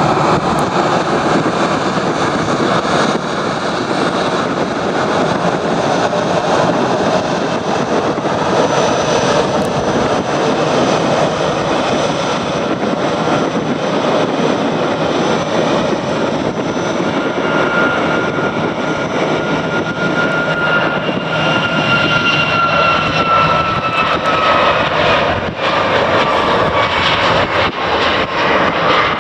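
Jet airliner's engines running loud and steady as it passes, with a high whine that slowly falls in pitch over the second half.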